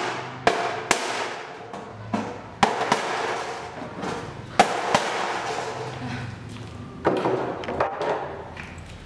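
Hand-held pointed cutting tool being forced through corrugated galvanized steel roofing sheet: a run of sharp metallic snaps and cracks with scraping and crinkling of the thin metal between them.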